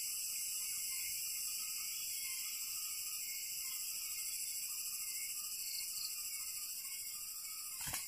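Steady, shrill chorus of insects in several high layers, with a fainter wavering note lower down. A brief knock comes right at the very end.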